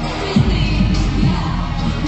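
Loud pop music with a steady thumping beat and a voice singing.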